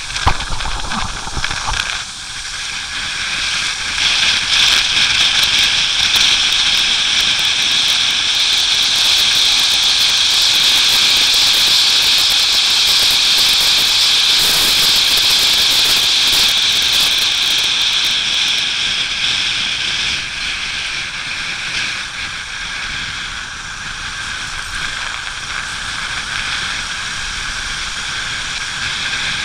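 Steady loud hiss of a motorcycle riding on wet, rain-covered asphalt: tyre spray and rushing air. It swells a few seconds in and eases off after about twenty seconds.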